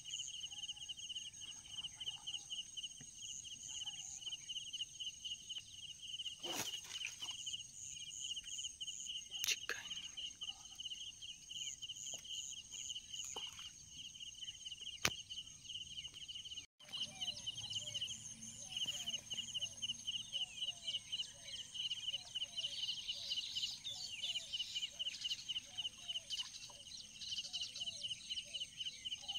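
Faint rural outdoor ambience: a steady, fast-pulsing high chirping goes on throughout, and about halfway in repeated short, low clucking calls join it. A few sharp clicks stand out in the first half.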